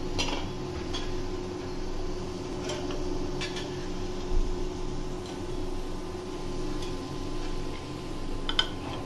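A few light clinks of a metal spatula against a steel plate and kadhai as fried potato pieces are lifted out of the oil, with a dull low thump about four seconds in, over a steady low hum.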